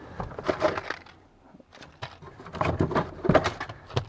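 Loose spare fuses rattling and clicking together as they are handled, in two bursts, the second about two and a half seconds in.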